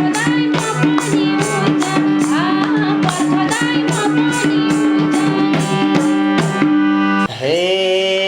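Instrumental interlude of a Nepali dohori folk band: a hand drum keeps a fast, even beat under a sustained melody line. About seven seconds in, the drumming stops and a single held, wavering note carries on.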